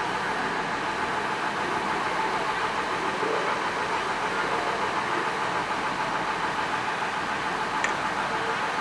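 Diesel engine of the NS 'Blauwe Engel' DE-1 railcar no. 41 idling steadily while the railcar stands still.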